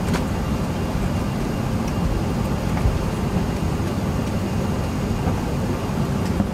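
Steady low rumble inside the cabin of an Airbus A380 taxiing, its four engines at low taxi power.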